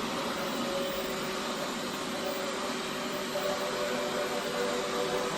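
First-generation Xiaomi robot vacuum running, a steady whir of its suction fan and brushes while it cleans.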